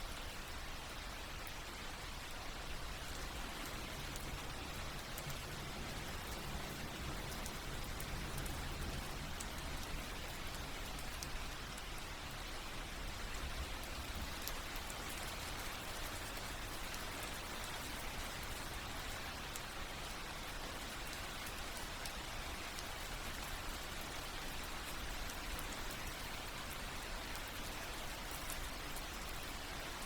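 Steady rain falling, an even hiss with fine scattered drop ticks, played as a relaxation soundtrack.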